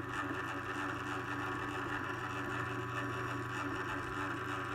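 Genie Model 1024 Pro garage door opener motor running steadily in the up direction with an even hum and whine, driven by a held up-travel button.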